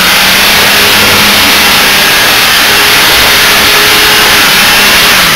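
Off-road 4x4's engine running hard at high, fairly steady revs as it climbs a steep dirt slope, loud and close.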